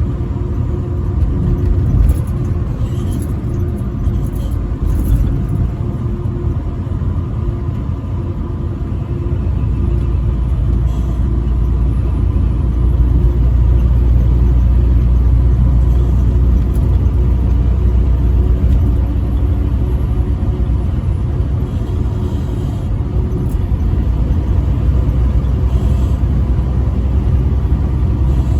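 Semi-truck driving on the highway: a steady low engine and road rumble that grows louder about ten seconds in, with a few light clicks in the first five seconds.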